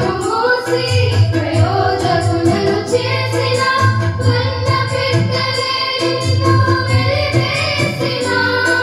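A group of girls singing a song together into microphones, accompanied by an electronic keyboard playing chords over a steady rhythmic bass line.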